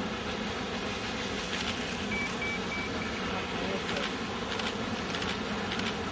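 Union Pacific 3985, a four-cylinder 4-6-6-4 Challenger steam locomotive, working a train across a bridge at a distance: a steady rumble of exhaust and running gear, with a few brief sharp knocks in the second half.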